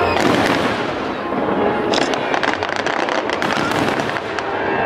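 Aerial fireworks bursting overhead. From about two seconds in, a dense run of crackling pops lasts for nearly two seconds.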